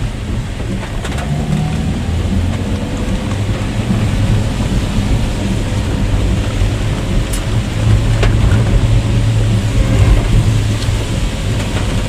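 Rain on a moving car, with the low rumble of engine and tyres under it; the low rumble grows a little louder about two-thirds of the way through.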